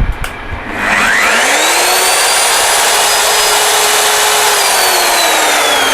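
Hand-held electric core drill running free, not cutting. Its motor spins up with a rising whine about a second in, runs steadily and loud, then starts to wind down near the end with the whine falling in pitch.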